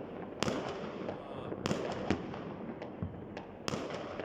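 Distant fireworks going off in many directions: a steady crackle with sharp bangs every half second to second, about six in all.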